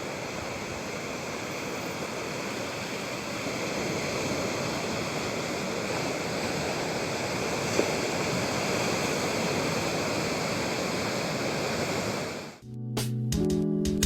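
Steady rush of ocean surf on a beach, swelling slightly in the middle. It stops near the end, when acoustic guitar music begins.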